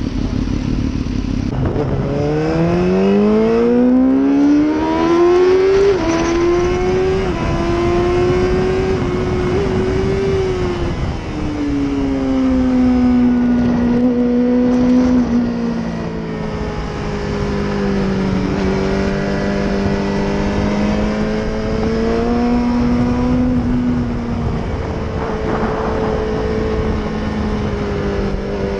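Motorcycle engine heard from on board at speed on a racetrack: it revs up through the gears for the first few seconds, drops back about ten seconds in, then runs at a fairly steady pitch through the corners, with wind noise throughout.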